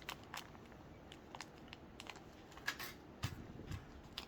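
Small gold cross pendants being handled: faint, irregular light clicks, with a couple of soft low thuds a little past three seconds in.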